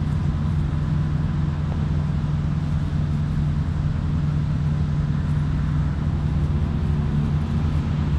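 Steady low rumble of road traffic, even throughout.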